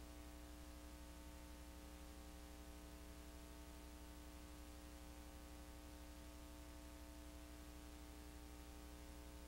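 Near silence: a low, steady electrical hum with faint hiss.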